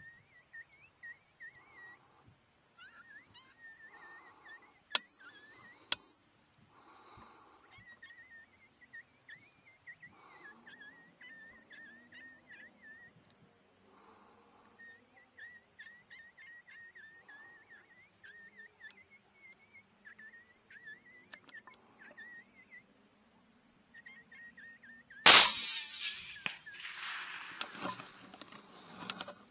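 Steady high-pitched chirping of night insects, with two sharp clicks about five seconds in. About 25 seconds in, a single suppressed rifle shot cracks out at a coyote, followed by a ringing, noisy tail.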